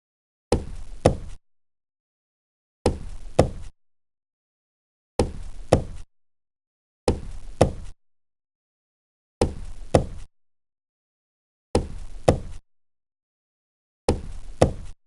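Knocking on a table, two knocks at a time, the second a little louder and about half a second after the first. The same pair repeats seven times, roughly every two seconds, with dead silence in between.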